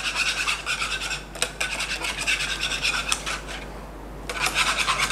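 A spoon and then a wire whisk stirring egg-and-milk custard in a nonstick saucepan, with quick repeated scraping strokes against the pan. The strokes pause briefly about three and a half seconds in, then resume as brisk whisking.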